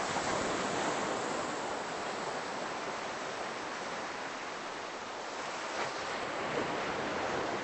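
Ocean surf breaking on a beach: a steady rush of waves, swelling at the start and again about six seconds in.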